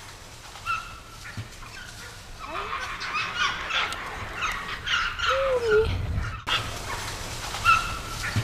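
Animal calls: a string of short high chirps and squeals, with a whining call that rises and falls about five seconds in.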